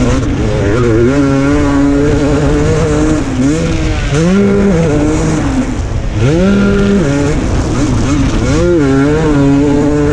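KTM 250 SX two-stroke single-cylinder motocross engine under hard riding, its pitch climbing steeply and dropping off again several times as the throttle is opened and rolled off.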